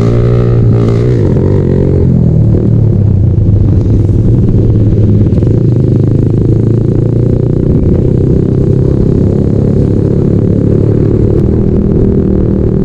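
Yamaha Sniper 135 (LC135) single-cylinder four-stroke engine running under way. Its pitch shifts during the first couple of seconds, then holds a steady speed.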